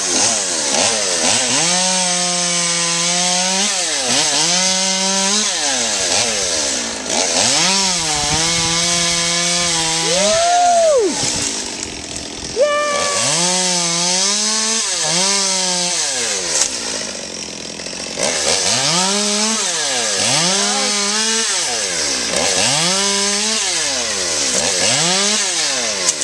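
Gasoline chainsaw, two-stroke, revved up and down again and again in short bursts as it is worked through pepper tree limbs. It drops briefly to idle about twelve seconds in, then goes back to quick rev cycles.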